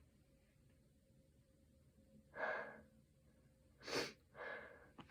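A person's breath catching in three short, sharp gasps in the second half, the build-up of a sneeze that won't quite come; near silence before them.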